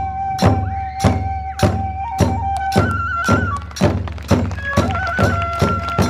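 Kagura accompaniment: a bamboo transverse flute holding long high notes over a steady beat of drum strokes and clashing hand cymbals. About halfway through the flute jumps up in pitch and the beat quickens.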